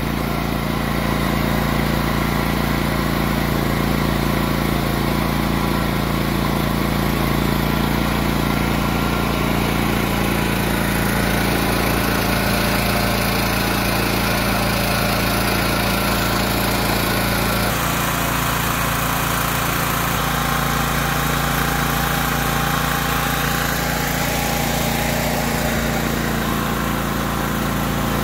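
Champion 100520 8750-watt open-frame inverter generator's gasoline engine running steadily just after its electric start. Its tone shifts slightly about two-thirds of the way through.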